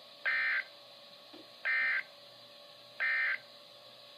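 Emergency Alert System end-of-message data bursts from NOAA Weather Radio: three short, harsh digital buzzes about a second and a half apart, signalling that the warning broadcast is over.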